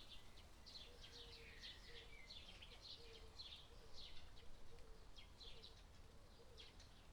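Faint birdsong ambience: many small birds chirping, several short chirps a second, over a soft low note that repeats underneath.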